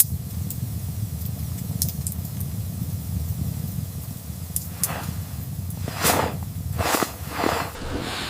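A steady low rumble with scattered sharp crackles, like a fire burning in a tent stove, with a few hissing swells from about five seconds in.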